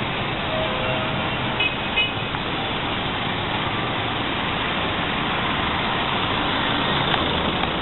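Steady roadside traffic noise: cars and vans driving past on a city street.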